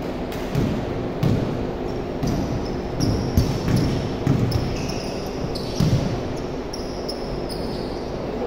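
Basketball being dribbled on a hardwood gym floor, an irregular run of bounces mostly in the first six seconds, with short high sneaker squeaks.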